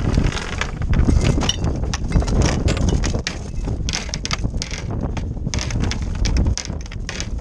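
Strong storm wind buffeting the microphone on a sailboat's bow, a constant low rumble, with many short rattles and knocks throughout.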